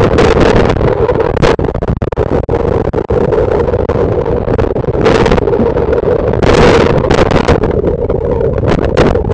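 Hurricane wind and storm-surge water picked up by a trail camera's microphone: loud, constant rushing noise with a steady drone under it, crackling buffets on the mic, and stronger gusts about five and six and a half seconds in.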